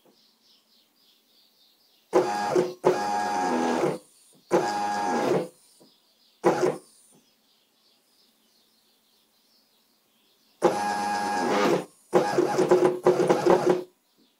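Stepper motors of a homemade CNC machine driving its axes during a test run, moving a pen over paper. They make six short runs of a steady, pitched motor whine, each under two seconds, with brief silent pauses between moves and a longer pause in the middle.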